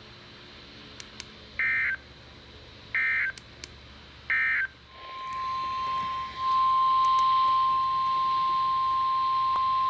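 Three short bursts of EAS SAME digital data tones, about a second and a half apart, signalling the end of the flood warning broadcast. About five seconds in, NOAA Weather Radio's steady 1050-hertz warning alarm tone begins and holds, announcing the next warning.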